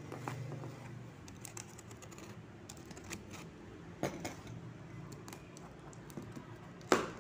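Fingers tapping, scratching and picking at a taped cardboard parcel, irregular light clicks on the cardboard and tape, with one sharp, louder click near the end as the packing tape is pulled loose.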